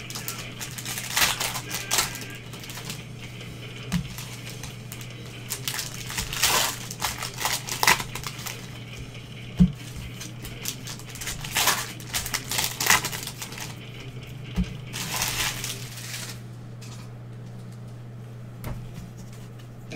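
Foil trading-card pack wrappers crinkling and tearing as gloved hands open packs, in about seven short bursts, with a few light knocks of handling. A steady low hum runs underneath.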